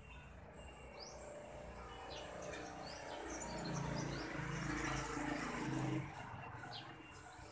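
Birds chirping over a steady high insect drone, with a low hum that swells in the middle and cuts off suddenly about six seconds in.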